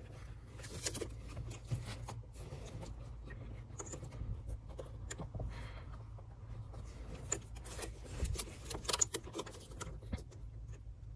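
Faint rustling and scattered light clicks of insulated wires being handled and routed under a car's dashboard.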